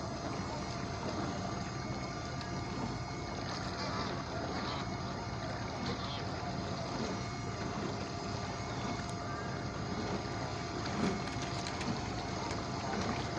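Motorboat engine running steadily, a constant whine over a low hum, with faint distant voices.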